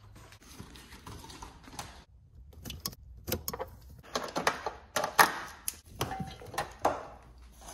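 Plastic wiring-harness connectors and the cloth-taped loom of a Ford Ranger's front door being unplugged and pulled free by hand: irregular clicks, snaps and rustles, the sharpest snap about five seconds in.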